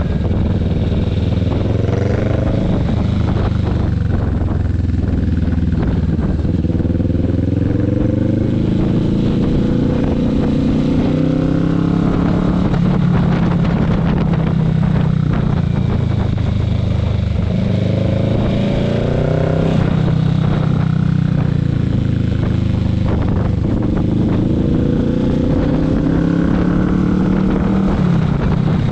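Motorcycle engine heard from the rider's seat, its pitch rising as it accelerates and then dropping back, about four times over.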